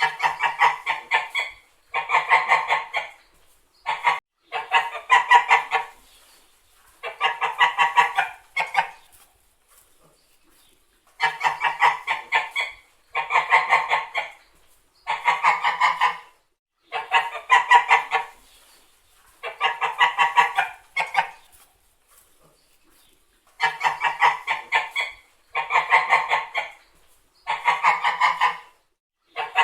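Domestic white geese honking in repeated bouts. Each bout is about a second and a half of rapid honks, and the bouts come roughly every two seconds, with two short pauses.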